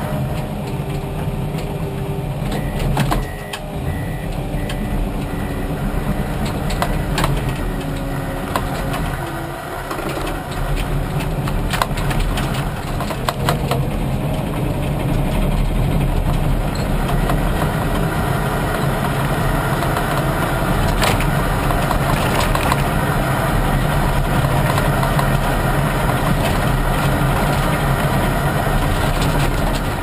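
Komatsu D61PXi bulldozer's diesel engine running steadily, heard from inside the cab, with scattered short knocks and rattles. The engine sound dips briefly twice in the first third.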